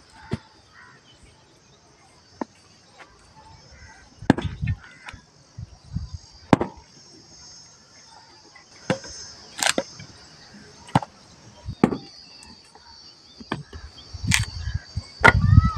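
Small hatchet chopping and splitting short pieces of firewood on bare ground: single sharp chops come at irregular gaps of a second or two, with heavier, deeper thuds near the end.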